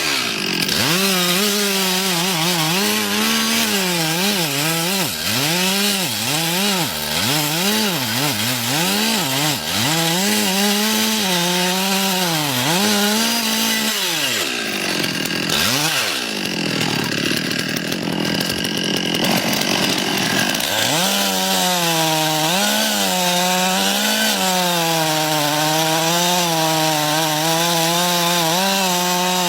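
Two-stroke chainsaw running, revved up and down over and over for the first half. For several seconds in the middle its pitch gives way to a rougher, noisier sound. It then runs steadily again with a slightly wavering pitch.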